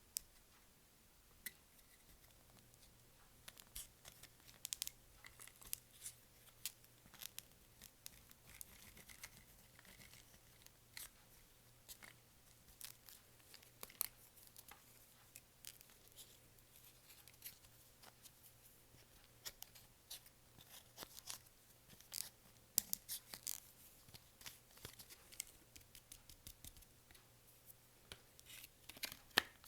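Clear slime being kneaded and stretched by hand, giving many small sticky clicks and pops at an irregular pace, over a faint steady hum.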